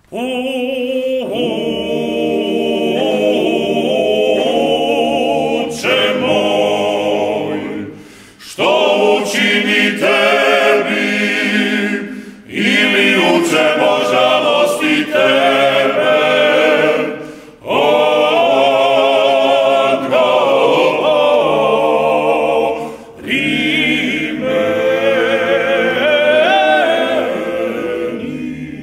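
Male klapa ensemble singing unaccompanied in close multi-part harmony, in the traditional Dalmatian a cappella style. The song comes in long phrases broken by short pauses for breath.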